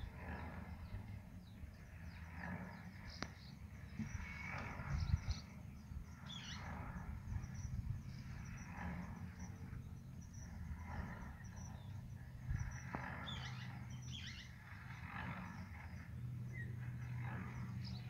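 Rural outdoor ambience: a low rumble of wind on the microphone, with faint animal calls every second or two.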